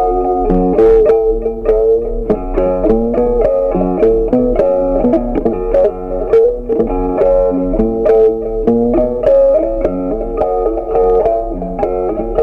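Background music: a plucked-string melody of short, quick notes over a lower line.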